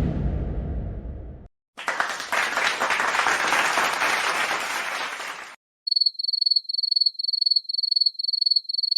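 A cinematic whoosh sweeping down from high to low and dying into a rumble, then about four seconds of applause from a crowd clapping. Near the end come crickets, chirping in an even pulse about three times a second.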